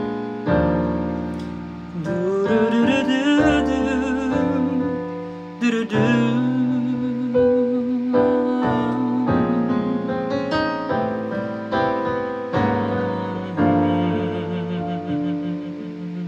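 Electronic keyboard played with a piano sound, chords struck about once a second. From a couple of seconds in until about the middle, a man's voice sings a wordless line of long held notes with vibrato over it.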